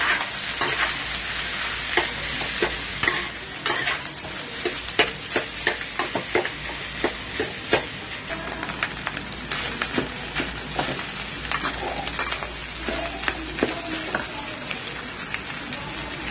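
Boiled potatoes frying in oil with mustard seeds and curry leaves in a wok, sizzling steadily. A metal spatula stirs and scrapes through them, with frequent sharp clicks against the pan.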